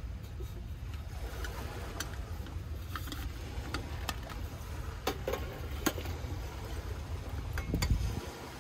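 Steady low rumble of wind and waves, with several light clicks and knocks as a metal mug fitted with a French press plunger and small canisters are handled and set into a steel lunch box. The loudest knock comes near the end.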